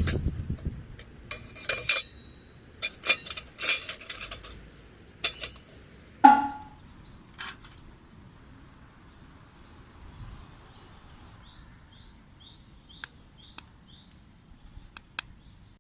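Light metal clinks and rattles from camping gear being handled, with one louder ringing clank about six seconds in. Small birds chirp repeatedly in the background near the end.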